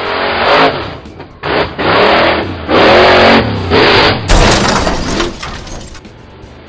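Cartoon monster truck engine sound effect revving in several short bursts that rise and fall in pitch, then a harsher rushing noise about four seconds in that fades away.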